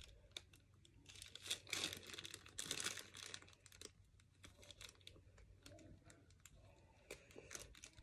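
Product packaging being handled: faint crinkling and rustling with many light clicks, busiest between about one and three seconds in.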